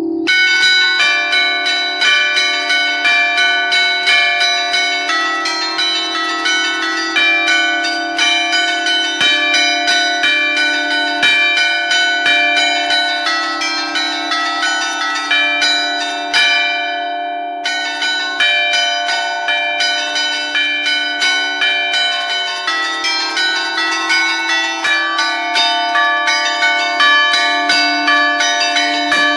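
A five-bell church bell set tuned in D (Barigozzi foundry, 1952) chimed by hand: the clappers are pulled against the stationary bells from a lever keyboard, playing a quick festive allegrezza tune of overlapping rings at about two strokes a second. The strokes pause for about a second a little over halfway while the bells ring on.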